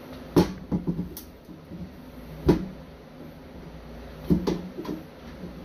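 Several sharp knocks and clicks of metal parts of a Mercury outboard distributor being handled and fitted together by hand, the loudest about half a second in and again about two and a half seconds in.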